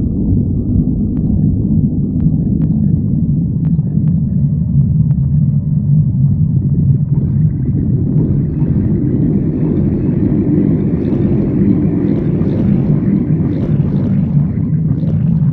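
Human stomach growling: a loud, continuous low rumble that spreads higher and fuller from about halfway through, with a few faint clicks.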